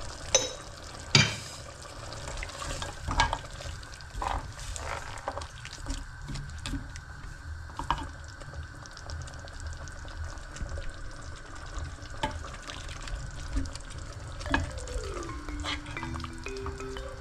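Food sizzling in a cooking pot while a spoon stirs it, clinking and knocking against the pot now and then. A short run of falling musical notes comes in near the end.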